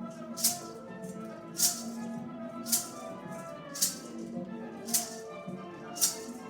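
A maraca shaken in single sharp strokes about once a second, keeping the beat over pitched background music.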